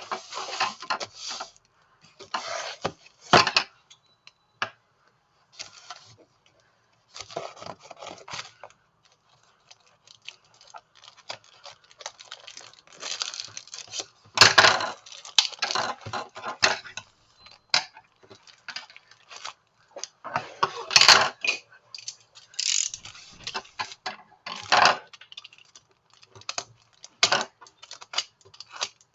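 A QiYi timer's box and packaging being handled and opened: irregular rustling and scraping in bursts, with sharp clicks and knocks of small plastic parts.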